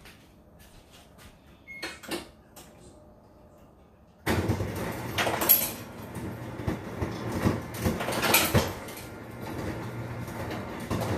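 A few light knocks, then about four seconds in a refrigerator ice dispenser starts up: a steady motor hum with ice cubes clattering and dropping into a glass.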